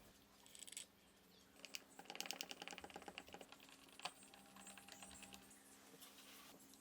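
A quick run of small clicks lasting about a second and a half, then a single click, over a faint steady hum.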